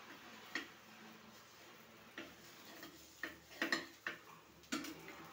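Metal spatula clicking and scraping against a small frying pan while pressing a bread omelette, as a handful of short, irregular knocks, several close together in the second half.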